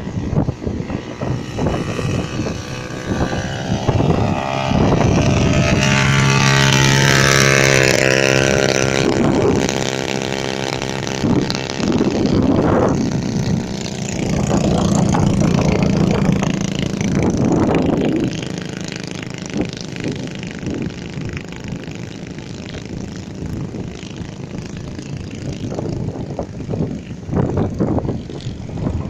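Strong wind on the microphone and surf, with an engine droning past twice, its pitch falling as it goes by the first time.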